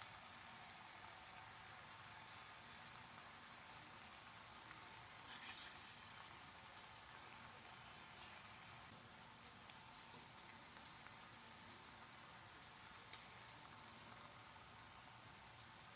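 Faint, steady sizzle of food frying in a pan over a campfire, with scattered small pops and crackles.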